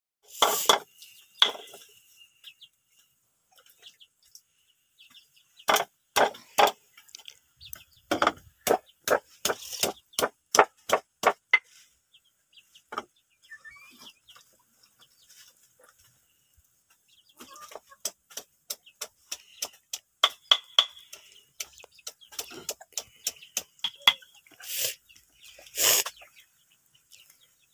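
Round stone pestle striking and crushing spices on a flat stone grinding slab: runs of sharp knocks, several a second, broken by pauses.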